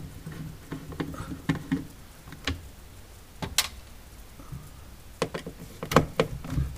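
Screwdriver tip working at the clips of a plastic control-board cover inside a Sub-Zero refrigerator: scattered clicks and taps of metal on plastic, with a sharp click about three and a half seconds in and a cluster of clicks near the end.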